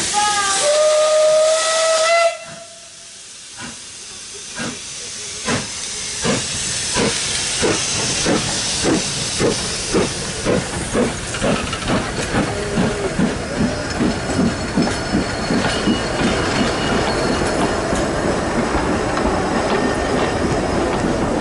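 Beyer Peacock steam tank locomotives starting a double-headed train: a steam whistle sounds for about two seconds and cuts off sharply. Then the exhaust beats begin, slow at first and quickening to fast chuffing as the engines pull away, over steady hissing steam.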